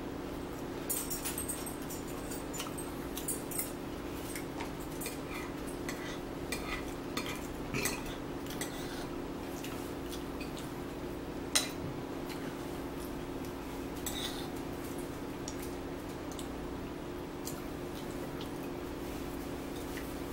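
Cutlery clinking against plates and dishes at a meal: scattered light clicks, with one sharper clink about halfway through, over a steady low hum.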